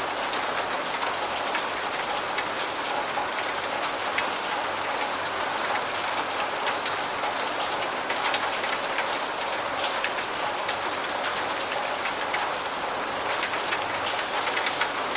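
Medium rain falling steadily, a continuous hiss of rain with many individual drop ticks scattered through it.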